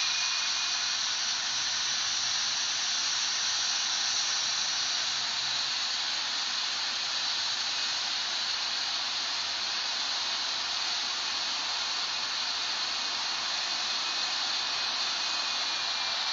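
Steady, even hiss of a Boeing 777 jet airliner's engines and rushing air, holding level without change.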